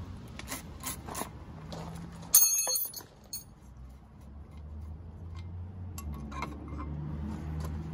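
A socket wrench on an outboard's propeller nut gives a few sharp clicks, then a metal part or tool strikes with a sharp clink and a short ring about two and a half seconds in. Faint knocks follow as the propeller is handled on its shaft.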